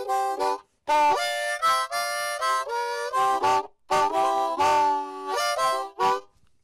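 Intro music: a reedy instrument playing short chordal phrases, broken by brief silences a few times.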